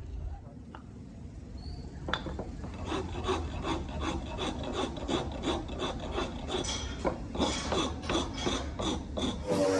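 Rasp or file scraping across wood in a steady rhythm of about three strokes a second, starting about two seconds in, as a wooden shoe is shaped by hand.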